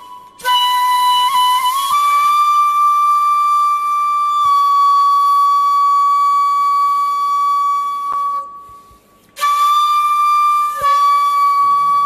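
Shakuhachi playing long held notes with a breathy edge, the pitch stepping up slightly about two seconds in. The tone breaks off for breaths right at the start and for about a second near the end.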